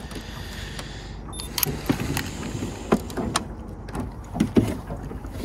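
A string of sharp knocks and clunks, about half a dozen at irregular intervals, over a steady low background rumble: gear and objects being handled on a boat.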